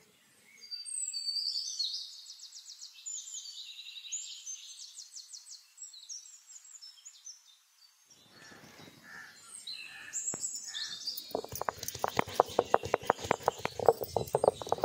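Small birds singing in rapid high trills and chirps. In the last few seconds, fast loud crunching clicks as a stone roller crushes spice pieces on a flat grinding stone.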